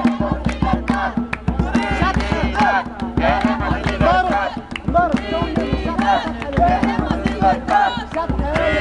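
A group singing and chanting together to a fast beat on a hand drum, with handclaps.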